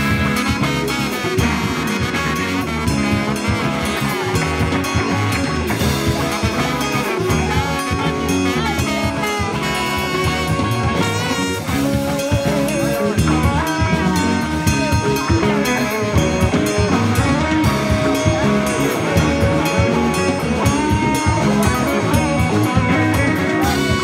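Live rock band playing a song: electric guitars, bass guitar and drum kit.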